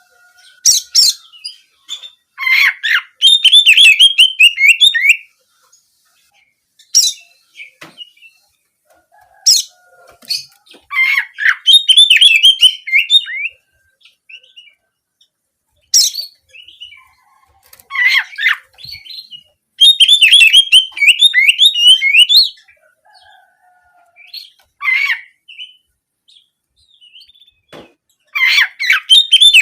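Oriental magpie-robin (kacer) singing in loud bursts of rapid, canary-like trilled notes, each lasting one to three seconds, with short pauses and single calls between them.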